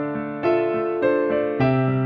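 Background music: electric piano playing a gentle melody with chords, a new note struck about every half second.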